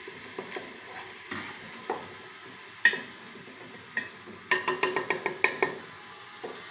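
Wooden spoon stirring sliced onions frying in oil in a stainless steel pot, scraping and knocking against the metal, with a quick run of knocks just past the middle. A faint, steady sizzle underneath.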